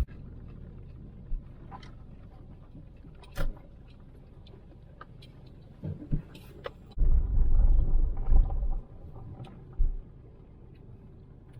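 Car driving, with a steady low road rumble and scattered light knocks. Past the middle comes a loud low buffeting that lasts nearly two seconds, with a few shorter ones around it.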